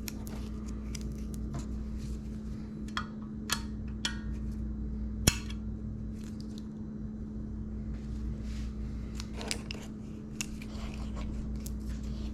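Small steel valve-train parts (valve locks, spring retainers and springs) clicking and clinking as they are picked up and handled, with one sharper metal click about five seconds in. A steady low hum runs underneath.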